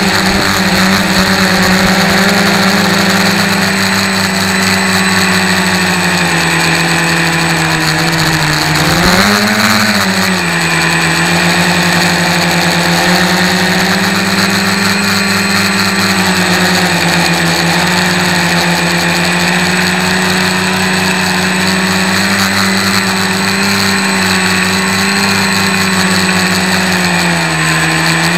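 H-frame quadcopter's electric motors and propellers humming steadily, heard close up through the onboard camera's microphone. About nine seconds in the hum briefly rises and falls in pitch, and it dips slightly near the end.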